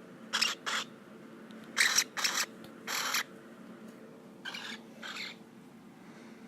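Cockatiel making short scratchy, hiss-like sounds, seven in all, mostly in pairs, over a faint steady hum.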